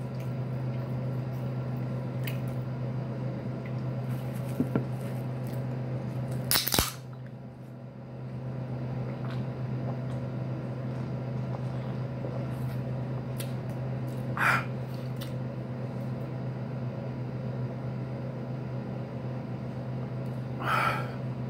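Steady low room hum, with a few brief sharp noises; the loudest is a single crack-like burst about a third of the way in.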